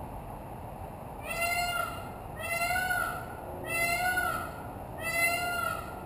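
Peacock giving four loud calls in quick succession, starting about a second in; each call lasts just under a second, with a pitch that rises slightly and falls back.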